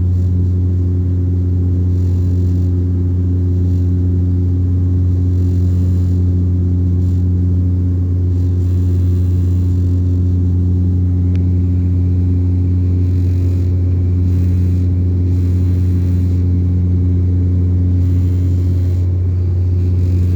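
A light airplane's piston engine and propeller running steadily in flight: an even, low drone with no change in pitch.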